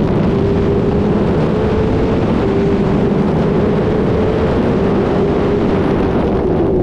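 A Suzuki sportbike engine running at high, nearly steady revs at highway speed, its pitch wavering only slightly, under heavy wind rush on the microphone.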